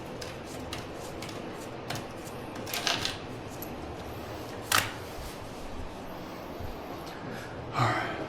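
A few sharp clicks and knocks from a sliding glass door panel being handled, over a steady low hiss. The sharpest click falls a little past halfway, and a louder knock comes near the end.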